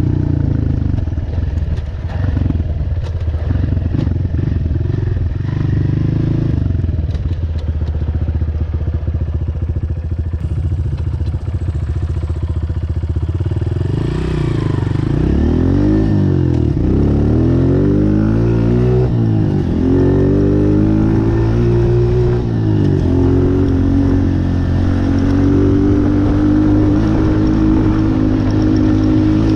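Honda CRF125F big-wheel dirt bike's single-cylinder four-stroke engine running while being ridden, with light clattering in the first half. From about halfway through, the pitch rises and falls several times as the throttle is worked, then holds steady at a higher pitch near the end.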